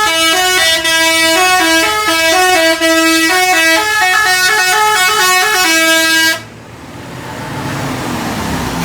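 Bus telolet horn, a Basuri multi-trumpet air horn, playing a quick tune of stepping notes that cuts off suddenly about six seconds in. A rumbling noise then builds up and grows louder.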